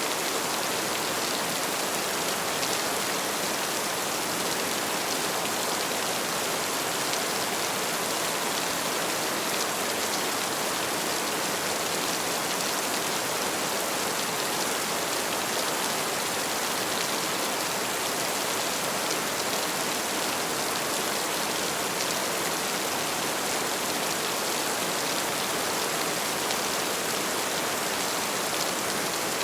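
Heavy rain falling steadily, a dense, even hiss of drops with no thunderclaps.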